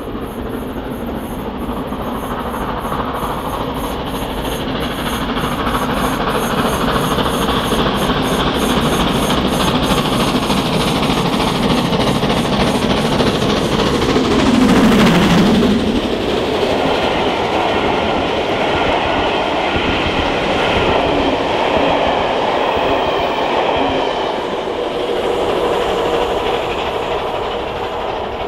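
GWR Castle Class 4-6-0 steam locomotive 5043 working a train under steam, its exhaust growing louder as it approaches. It is loudest as it passes about halfway through, followed by the coaches rumbling and clattering over the rail joints as the train draws away.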